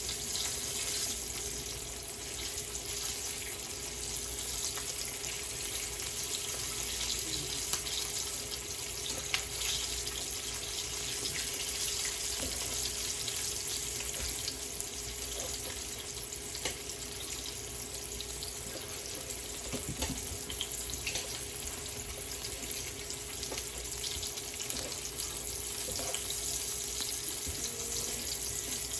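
Floured chicken legs deep-frying in hot oil: a steady sizzle with scattered small pops, over a faint steady hum.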